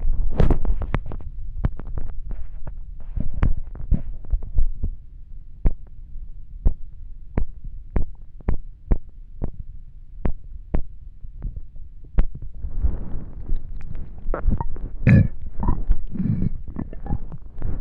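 A hungry human stomach growling and gurgling, with many quick, sharp pops and clicks over a low rumble. The pops space out in the middle, then the gurgling thickens about two-thirds of the way in, with a louder low gurgle near the end.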